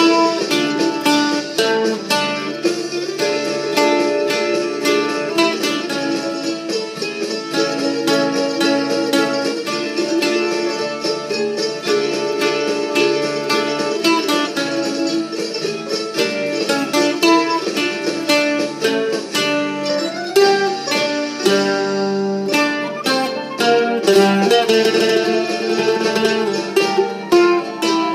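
Mandolin orchestra of mandolins and mandola playing a Ukrainian festive march together, many plucked strings sounding quick notes over a steady accompaniment.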